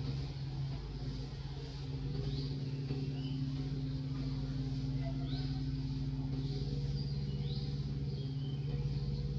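Steady low engine hum, like a motor vehicle running at idle, with a few short high chirps over it.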